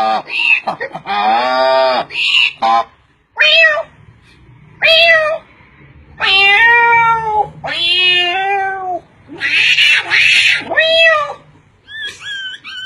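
A person's voice imitating cat meows: a string of short meows, then longer drawn-out meows that waver in pitch. Near the end a quick, even run of short rising calls begins.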